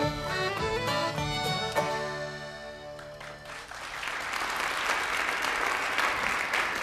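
The last notes of an acoustic folk song ring out and fade, then audience applause starts a little past halfway through and carries on steadily.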